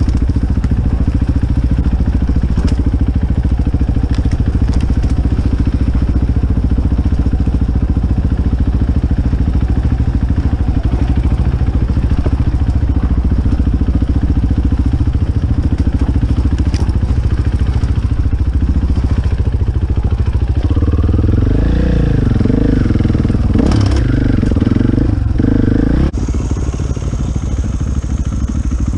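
KTM enduro motorcycle engine running as the bike rides a dirt trail, heard from on the bike. The revs swing up and down repeatedly about three-quarters of the way through, then it settles steadier and a little quieter near the end.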